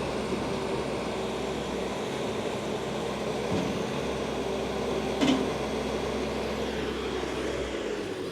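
Bobcat T595 skid steer loader's four-cylinder turbo diesel engine running steadily with an even hum. A single short knock sounds about five seconds in.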